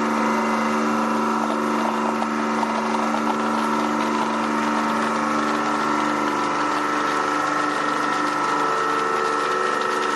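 Hydraulic press pump running with a steady hum while the ram slowly squeezes a football under load.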